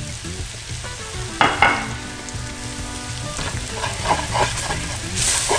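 A flour-and-butter roux sizzling in a hot stainless steel pan while a metal slotted spatula stirs and scrapes it, with a few quick scraping strokes a little past the middle. A short steady tone sounds from about a second and a half in for nearly two seconds.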